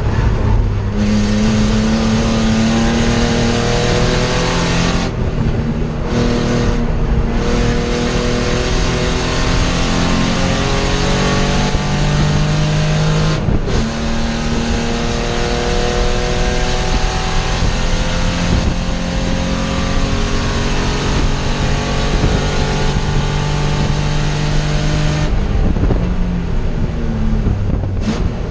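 Spec E30 BMW's 2.5-litre straight-six racing engine at full throttle, heard from inside the cabin. Its pitch climbs steadily in each gear, with a few brief lifts or shifts in the first quarter, one near the middle and a longer one near the end.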